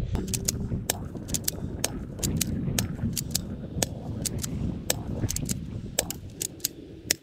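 A cheap spring-powered airsoft pistol being racked and fired again and again: a quick run of sharp plastic clicks and snaps at uneven intervals, over a low rumble.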